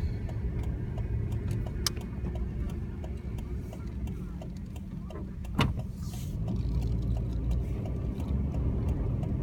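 Steady low rumble of a car's engine and road noise heard inside the cabin while driving slowly, with faint scattered clicks and one sharper knock about five and a half seconds in.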